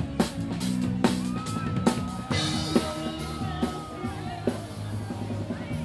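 Rock music with a drum beat hitting about once a second and a long held note through the middle.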